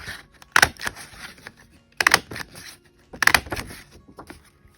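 A scalloped-edge square craft hole punch pressed down through patterned paper three times, each press a sharp clack about a second and a half apart.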